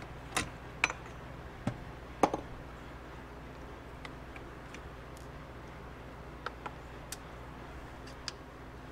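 Scattered metallic clicks and knocks of Suzuki TC125 engine parts being handled: the freed crankshaft set down on the workbench and the aluminium crankcase half with its gearbox turned over. The firmest knock comes about two seconds in, with a few lighter ticks later.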